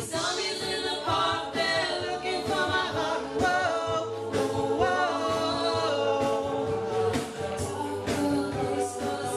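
Vocal music: several voices singing in harmony, a moving melody over long held lower notes, with a steady beat underneath.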